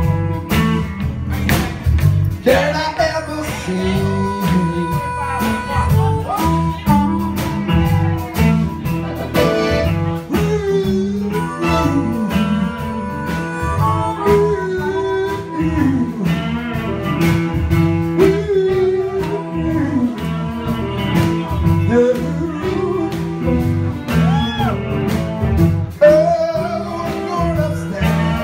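A live electric blues band plays an instrumental passage. A lead line bends up and down in pitch over bass and a steady drum beat.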